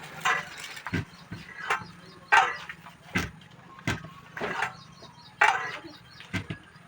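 A series of sharp, irregular knocks, about a dozen, some followed by a brief ringing.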